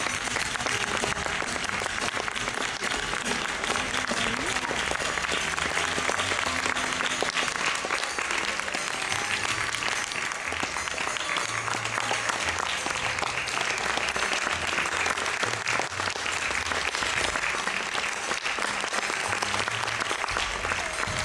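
Theatre audience applauding for the cast's curtain-call bows, many hands clapping in a dense, steady wash.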